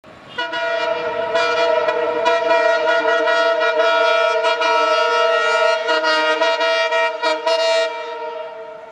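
Air horn of an ALCO WDG-3A diesel locomotive sounding one long, loud warning blast, several tones at once, with a couple of brief dips near the end before it dies away.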